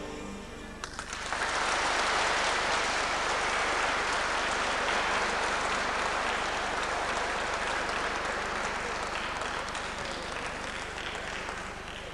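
Backing music ends about a second in, then an audience applauds steadily, the clapping fading near the end.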